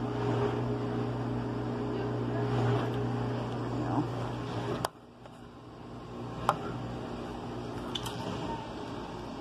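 Steady low hum of a kitchen appliance's motor running. It cuts off abruptly at a click about five seconds in, leaving a fainter hum broken by a few sharp clicks.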